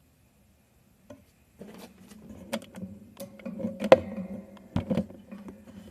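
Handling noise: scattered clicks and knocks of small objects being picked up and set down, loudest about four seconds in and again about a second later, over a faint low hum.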